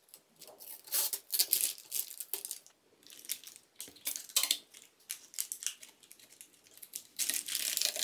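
Metallised anti-static bag crinkling and rustling in irregular bursts as a motherboard is handled and turned on it, loudest about a second in and again near the end.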